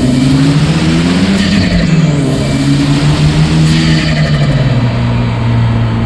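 Hyundai Genesis Coupe's turbocharged 2.0-litre four-cylinder engine revving, with a rising turbo whistle as it spools. Twice, about a second and a half in and again near four seconds, there is rapid turbo flutter as the throttle closes. After that the revs drop and settle.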